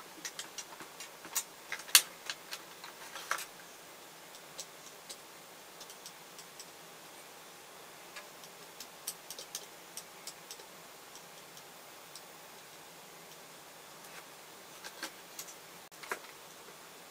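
Sparse small clicks and ticks of hands handling the opened cordless screwdriver's wiring and plastic housing, clustered in the first few seconds with the sharpest click about two seconds in, and a few more near the end.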